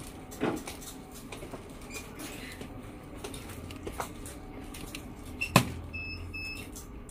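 Light clicks and taps of a small glass vial and plastic tube being handled, then a sharp click about five and a half seconds in, followed by two short high electronic beeps from the semi-automatic biochemistry analyzer.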